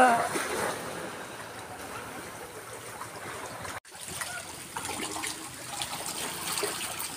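Shallow seawater lapping and trickling over a pebbly shore. After a brief break in the sound about four seconds in, there is light splashing of someone wading through the shallows.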